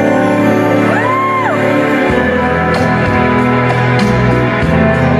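Slow bolero dance music, an instrumental introduction of sustained chords, with a light percussion beat coming in about halfway. A single whoop from a spectator rises and falls about a second in.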